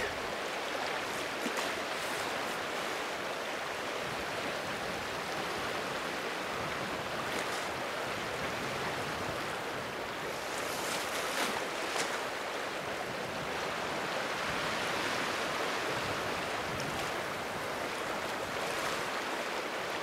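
Steady wash of choppy lake water, with a few faint splashes from a grizzly bear diving and surfacing in it.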